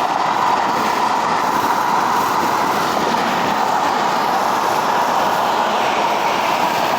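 Steady rolling traffic noise on a freeway, an even roar without breaks or distinct events.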